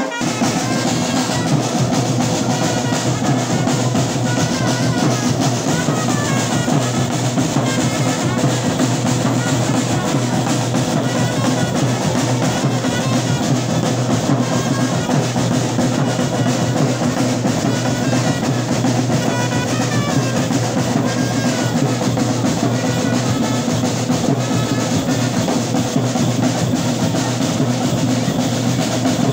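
Music with continuous drumming that does not let up.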